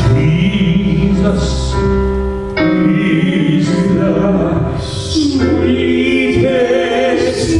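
Gospel worship music: singers with a band, keyboard chords held under the voices and cymbal crashes.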